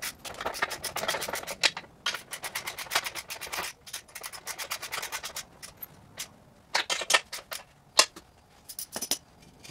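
Socket ratchet with a 17 mm socket on an extension clicking as it tightens the nuts on a transmission mount. There is a fast, even run of clicks for about the first three and a half seconds, then slower, scattered clicks and short runs.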